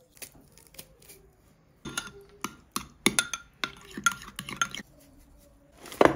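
Dishes and glassware being handled: a quick run of clinks and knocks, some ringing briefly, for about three seconds, then one louder knock near the end.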